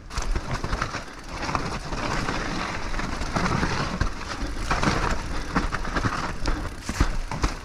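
Mountain bike on a wet, muddy downhill trail: a steady rush of tyre and wind noise with many clicks and rattles from the bike.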